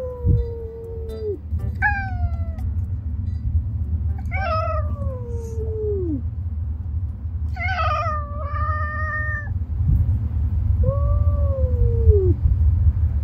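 Street cats meowing repeatedly: about five drawn-out meows, several rising then falling in pitch, over a steady low rumble.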